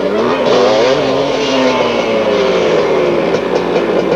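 Dirt bike engines revving as riders approach, the pitch rising and falling with the throttle and drifting lower over the last few seconds.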